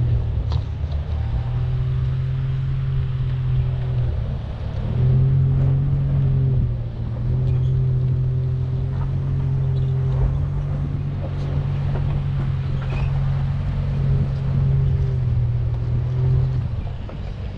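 2019 Chevrolet Colorado ZR2's engine running at low, steady revs as the truck crawls up a rocky dirt trail, easing off briefly about 4 and 7 seconds in and again near the end. Faint clicks of tyres on stones come now and then.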